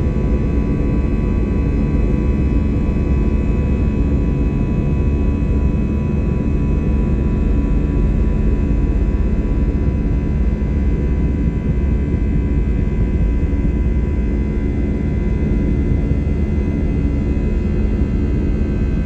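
Airbus A321's CFM56-5B jet engines running, heard inside the cabin: a loud, steady rumble with a thin, even whine on top.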